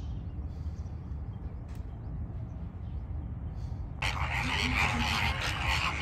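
A large flock of greater flamingos calling, many honking voices overlapping into a dense chatter that becomes suddenly much louder about four seconds in, over a steady low rumble of wind on the microphone.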